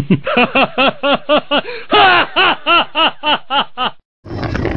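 Laughter: a fast, even run of 'ha' syllables, about four or five a second, stopping abruptly near the end. Just after it, wind noise on the microphone begins.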